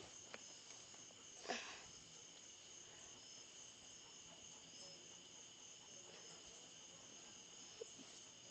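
Near silence, with a faint steady high-pitched ringing or chirring in the background and one brief soft sound about one and a half seconds in.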